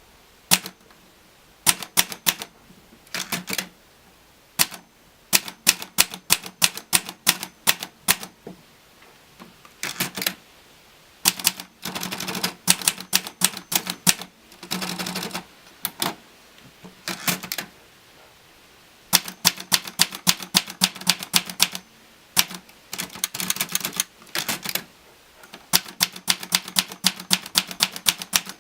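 Olivetti Lettera DL manual portable typewriter being typed on: runs of sharp key strikes, several a second, in bursts with short pauses between.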